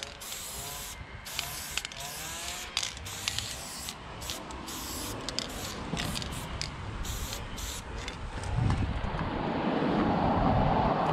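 Aerosol spray-paint can with a New York fat cap spraying in a quick series of short hissing bursts as a tag is written. Near the end a louder low rushing noise takes over.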